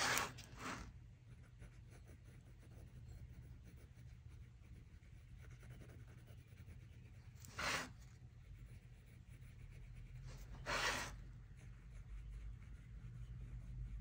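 Soft graphite lead of a 0.9 mm mechanical pencil scratching lightly on sketch paper as circle edges are shaded, with a few brief louder swishes.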